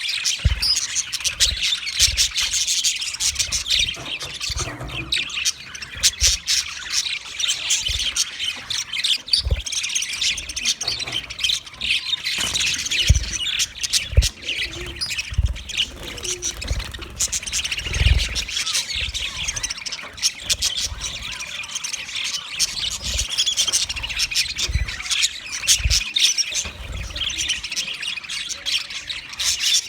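English budgie (exhibition budgerigar) chirping and chattering continuously, with squawky notes mixed in. Occasional soft low thuds sound underneath.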